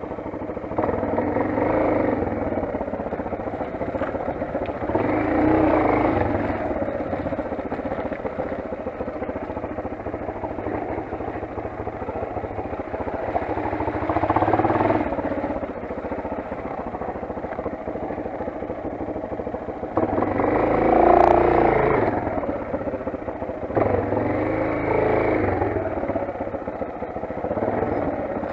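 Motoland XR 250 enduro motorcycle's single-cylinder four-stroke engine running on the move. The throttle is opened in surges every few seconds, loudest about two-thirds of the way through.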